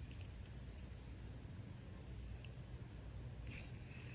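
Steady, high-pitched drone of an insect chorus, with a low rumble beneath it and a faint click about three and a half seconds in.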